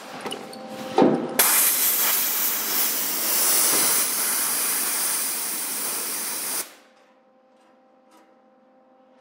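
Compressed-air blow gun blasting a fresh MIG tack weld on sheet steel to cool it so the metal doesn't warp. A short puff about a second in, then a steady loud hiss for about five seconds that cuts off suddenly.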